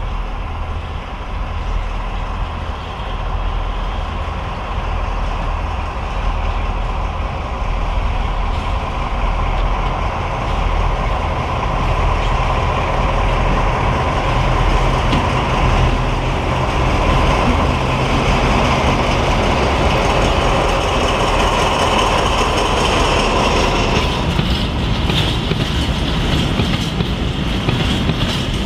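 SNCF BB 67400-class diesel locomotive BB 67621 and a second diesel locomotive drawing a freight train slowly past: the diesel engines run with a steady low drone that grows louder as they come by. Near the end the engine sound gives way to the wagons' wheels clattering over the rail joints.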